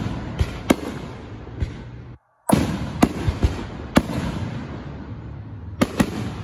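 Aerial firework shells bursting in quick succession during a finale: sharp bangs, often two close together, over a continuous noisy wash of reports. The sound cuts out abruptly for a moment just after two seconds in, then resumes.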